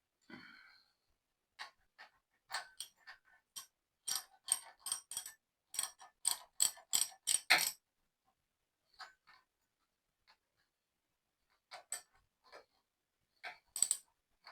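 Hand tools clicking and clinking on metal in quick, irregular runs: a busy stretch in the first half and a shorter cluster near the end.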